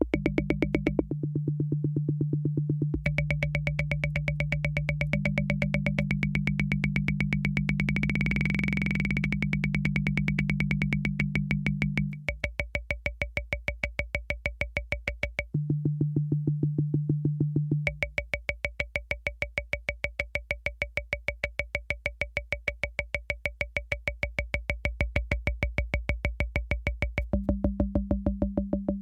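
Univox drum machine playing a very fast, even pulse of electronic clicks over steady electronic tones. The tones switch pitch and drop in and out every few seconds.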